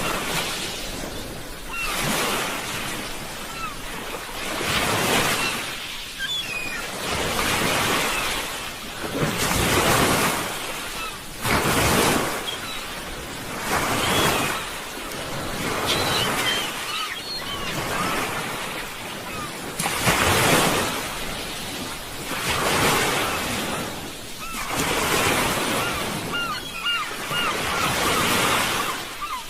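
Sea waves breaking and washing ashore, a surge of surf about every two to three seconds.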